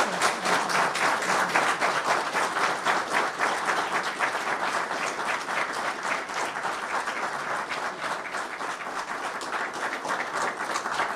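Audience applauding, a dense round of clapping that eases slightly toward the end.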